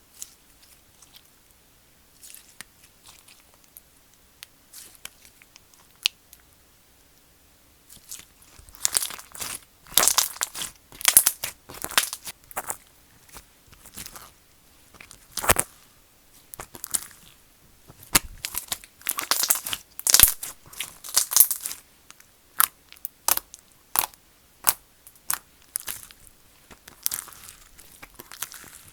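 Slime being squeezed and kneaded by hand, crunching and popping. A few faint clicks give way to a dense run of sharp crackles and pops from about eight seconds in.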